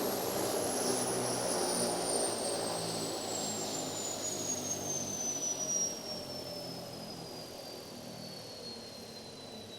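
Helicopter turbine engine spooling down: its high whine falls slowly and steadily in pitch while the overall engine noise fades, the sound of the engine being shut down.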